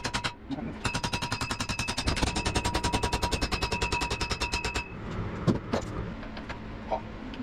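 Small hammer rapidly tapping a socket to drive a stuck U-joint bearing cup out of a driveshaft yoke: metal-on-metal strikes, about eight a second, with a ringing tone, for about four seconds. A few single knocks follow.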